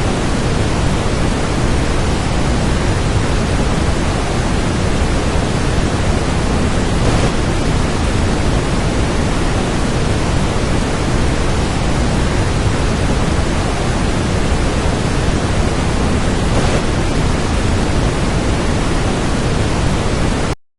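Waterfall: a steady, unbroken rush of falling water that cuts off abruptly near the end.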